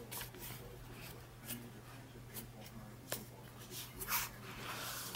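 Handling noise as a BlackBerry PlayBook tablet is lifted out of its box: scattered light clicks, taps and rustles of plastic and card packaging, the loudest a longer rustle about four seconds in, over a steady low hum.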